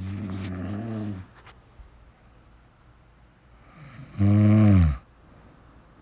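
Snoring: two snores about three seconds apart, the second shorter and louder, dropping in pitch as it ends.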